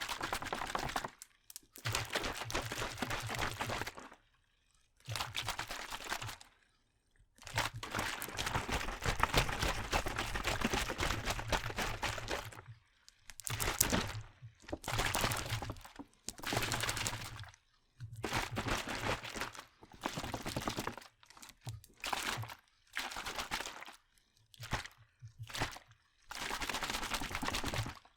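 A plastic water bottle with water inside being shaken, in bouts of dense sloshing and crinkling that last from under a second to several seconds, with short pauses between them.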